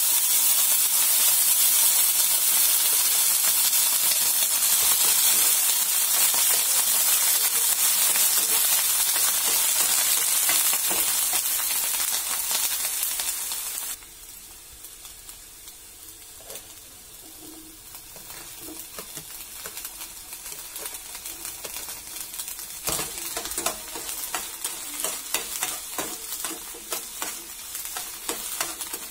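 Sliced onions sizzling in hot oil in a frying pan, loud at first, then dropping sharply about halfway through. Later a metal spatula stirs them, with quick clicks and scrapes against the pan over the quieter sizzle.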